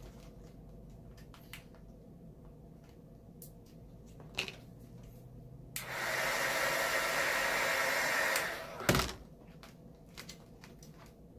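Heat gun blowing steadily for about three seconds, switched on and off, softening vinyl wrap so it will stretch around a corner. A sharp knock follows just after it stops, with faint handling taps before and after.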